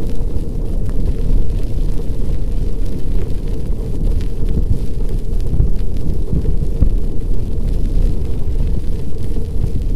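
Wind buffeting the recorder's microphone while cycling, a loud continuous low rumble, with faint clicks and rattles from the bike ride underneath.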